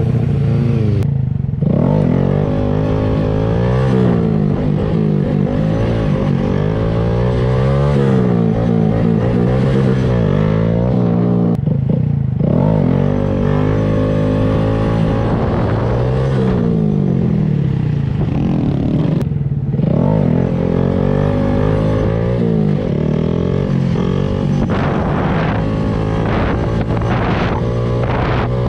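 Motorcycle engines being ridden under way, their pitch climbing and falling again and again as the throttle is worked through the gears. There are short dips about a second in, near the middle and about two-thirds through.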